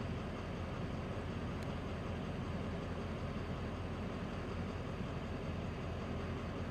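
Vehicle engine idling: a steady low rumble.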